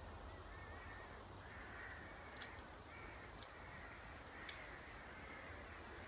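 Faint outdoor bird calls: short high chirps repeated every second or so, over a steady low background hum.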